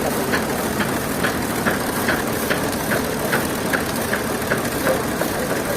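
Sawmill machinery running steadily, with a regular sharp clicking a little over twice a second.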